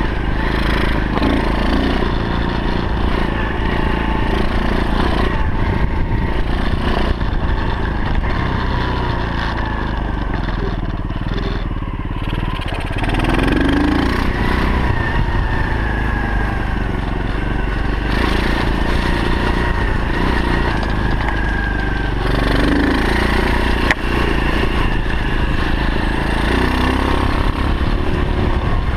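125cc pit bike's single-cylinder four-stroke engine running under way, its revs rising and falling as the throttle is worked.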